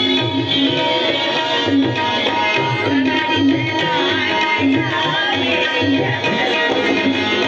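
Tabla playing a steady rhythmic pattern under drama-song music with sustained instrumental tones, and a voice singing a drawn-out melodic line.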